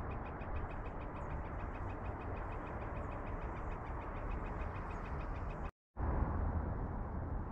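Outdoor ambience: a low wind rumble on the microphone under a rapid, even ticking of about eight a second. The sound drops out for a moment about six seconds in and comes back as a plain rumble without the ticking.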